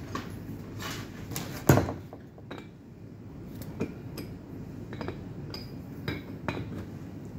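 Irregular metallic clinks and light knocks from a hand tool working at the fittings of a foil-wrapped metal cylinder, a part from a Melag 31B autoclave, with one loud knock about two seconds in.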